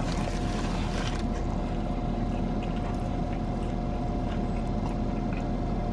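Steady hum of a car running, heard inside the cabin, with faint chewing and a few crinkles of a foil sandwich wrapper near the start.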